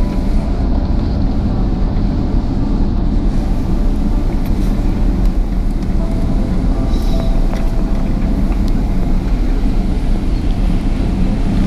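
Cabin noise of a Boeing 777-300ER taxiing after landing: its GE90 engines at idle and the airframe rolling over the taxiway make a steady low rumble, with a faint engine tone coming and going.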